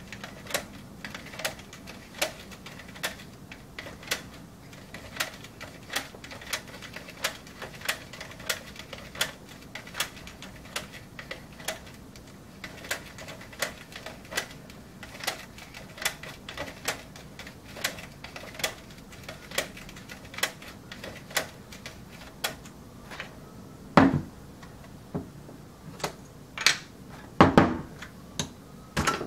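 AP Bobinquick-135 bulk film loader's winding knob being turned, its mechanism clicking steadily about one and a half times a second as film is wound into the cassette. Near the end the clicking stops and a few louder knocks follow as the loader is handled.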